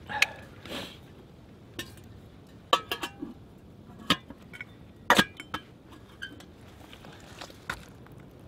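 Stainless steel camp cookware clinking and knocking as a small dish of eggs is set into a billy can of water and the lid and wire bail are handled. It comes as a series of sharp clinks, the loudest about five seconds in.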